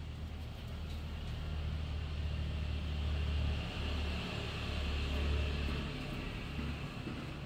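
A steady low rumble with a faint hiss over it, swelling a little twice, about three and five seconds in.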